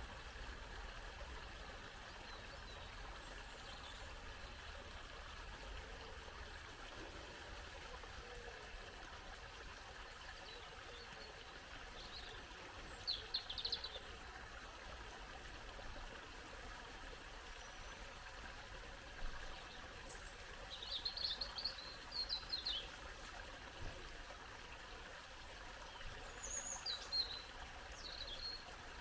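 Small brook babbling steadily, with songbirds singing short bright phrases over it, most clearly about 13 seconds in, around 20 to 23 seconds in and again near the end.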